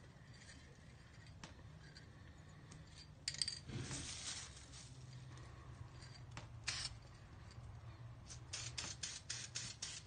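Aerosol can of Dupli-Color Wheel Gloss clearcoat spraying onto a wheel, hissing. There is a longer spray about four seconds in, then a run of short, quick bursts near the end.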